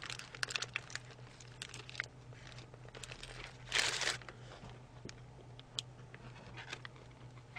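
Paper wrapper of a chicken burger crinkling and rustling in the hands, with soft chewing and small clicks; a louder rustle about four seconds in.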